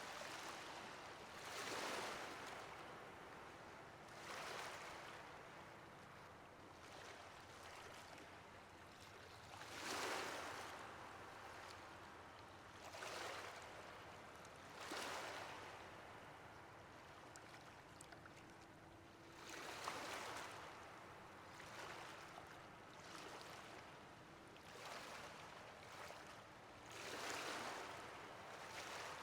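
Ocean waves washing onto a shore: a quiet, steady hiss of surf that swells into a louder surge every few seconds and then drains away.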